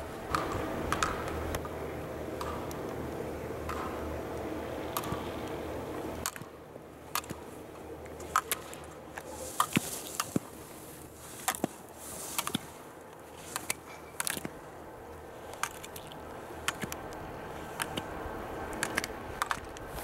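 Skis scraping on snow as slalom racers turn through the gates, with irregular sharp clacks as gates are struck. A steady rushing noise for about the first six seconds.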